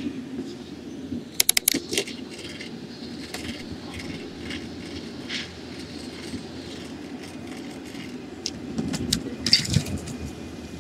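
Bicycle rolling along city pavement: a steady rumble of tyres and wind, with sharp metallic rattles as the bike jolts over bumps, a quick cluster of clicks about a second and a half in and more near the end.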